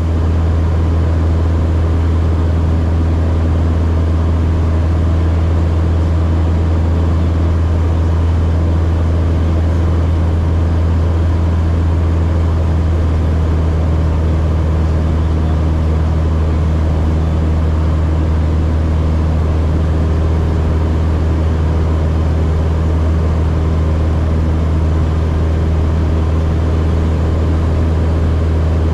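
Socata TB9 Tampico's four-cylinder Lycoming piston engine and propeller running steadily in flight, a loud, even drone heard inside the cockpit.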